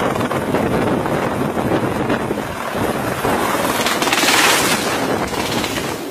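Light helicopter lifting off close by, its rotor and engine buried under loud wind noise as the rotor downwash blasts the microphone. The rush surges loudest about four seconds in, as the downwash throws debris past.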